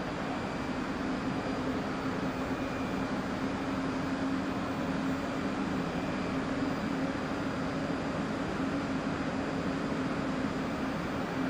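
R62A subway train standing at the platform with its doors open, humming steadily.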